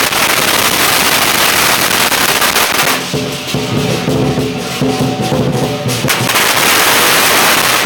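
A string of firecrackers going off in rapid, dense crackling over the lion dance drum, cymbals and gong. The crackling eases about three seconds in, letting the percussion come through, then starts up again about six seconds in.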